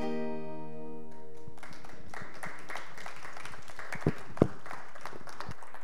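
The last chord on an acoustic guitar rings out and fades, then the congregation applauds, with two sharp thumps about four seconds in.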